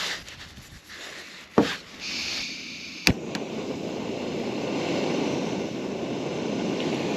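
Butane canister stove being lit: a knock, then gas hissing from the opened valve, a sharp click of the piezo igniter about three seconds in, and then the burner running steadily.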